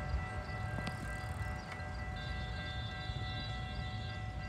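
Metra commuter train, led by an MP36 diesel locomotive, approaching slowly from a distance: a low rumble with several steady high tones over it, and a higher tone joining about two seconds in.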